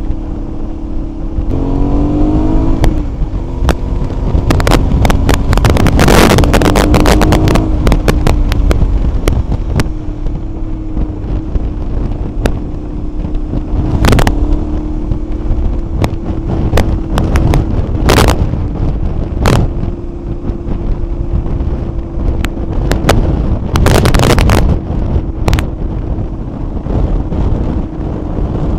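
Motorcycle engine running at a steady cruise, its pitch rising briefly about two seconds in and then holding, buried under strong wind buffeting the microphone in repeated gusts.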